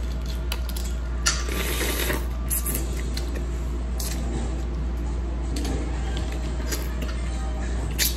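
Scattered light clicks and clatter of small clam shells being cracked and handled while eating, with a denser rustling patch a little over a second in. A steady low hum runs underneath.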